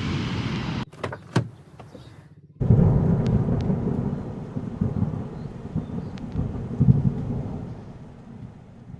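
Low rumbling noise that cuts off abruptly just under a second in, leaving a quiet gap with a couple of sharp clicks. The rumble starts again loudly at about two and a half seconds and slowly fades.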